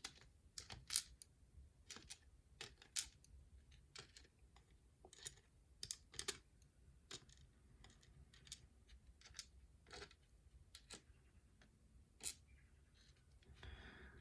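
Small metal lock pins and springs tapping and clicking as they are picked up and set down one by one: faint, irregular light clicks a second or so apart.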